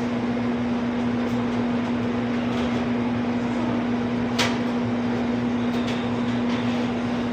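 Steady machine hum, a constant low tone over an even rushing noise, like refrigeration or ventilation equipment running. One sharp click or knock about four and a half seconds in.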